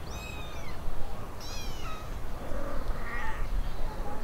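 Young kittens mewing three times in high, thin calls, the second the loudest: kittens calling while they search for their mother's milk.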